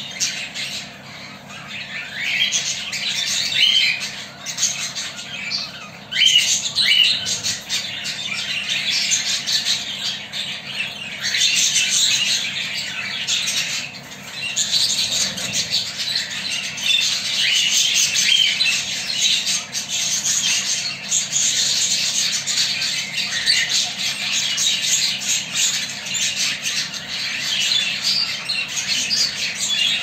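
Budgerigar chattering in a steady, dense run of short, high, scratchy calls, with a brief lull about halfway through.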